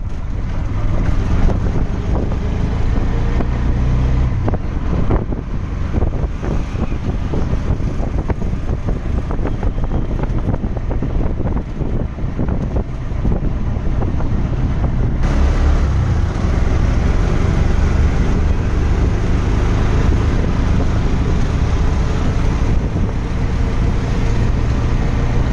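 Wind buffeting the phone's microphone from a moving vehicle, over a steady road and traffic rumble. The noise is loud and dense throughout, heaviest in the low range.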